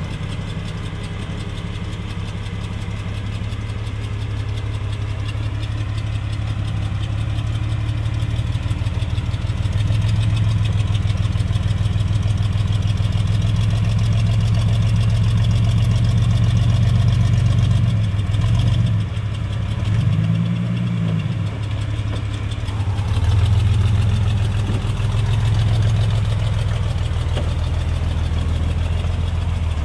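Off-road 4x4's engine running low and steady, with one short rev that rises and falls about twenty seconds in.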